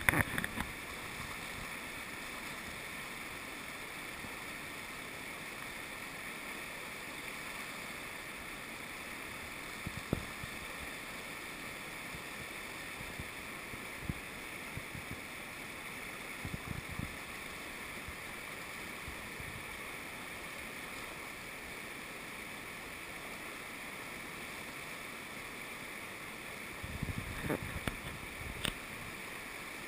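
Whitewater river rapids rushing steadily, with a few brief knocks now and then and a short cluster of them near the end.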